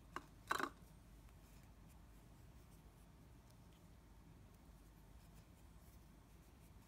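Two brief soft rubbing sounds of fingers handling fishing line and a hook within the first second, the second one louder. After that, near silence with faint room tone.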